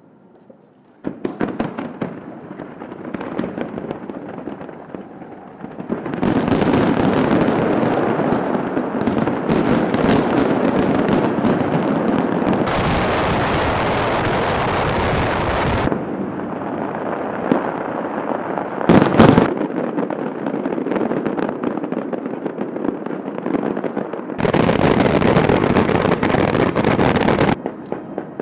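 Fireworks display: a dense, continuous crackle of many bursts and pops, starting about a second in and growing louder a few seconds later, with sudden jumps in loudness along the way.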